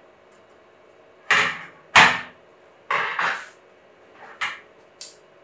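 A run of six irregular sharp knocks over about four seconds, each dying away quickly. The second, about two seconds in, is the loudest.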